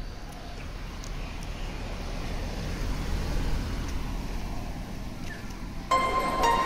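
A car driving slowly past, its engine and tyre noise swelling and then fading away. Background music comes in abruptly near the end.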